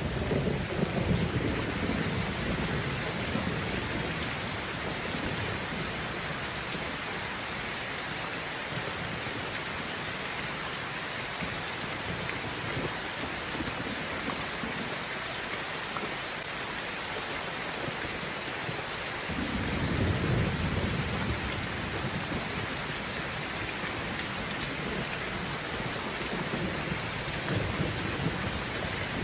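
Steady rain with thunder rumbling: a low rumble in the first few seconds, a stronger one starting suddenly about two-thirds of the way through, and another near the end.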